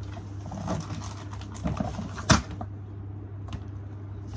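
Hard plastic parts of a Play-Doh Ice Cream Maker toy being handled and fitted together: light clicks and one sharp knock a little past two seconds in, over a steady low hum.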